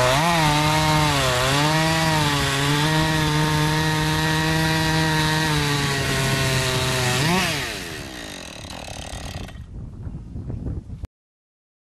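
Husqvarna 440e two-stroke chainsaw cutting through a large log under load, its engine note dipping and recovering early on, then running steadily. About seven seconds in the pitch rises briefly as the cut finishes, then the engine sound falls away and fades before cutting off abruptly near the end.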